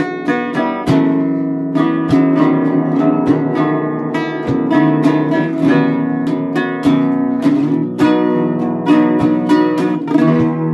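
Antique double-neck contraguitar being fingerpicked: a continuous run of plucked notes over ringing low bass strings, played as a test of the instrument after its neck repair.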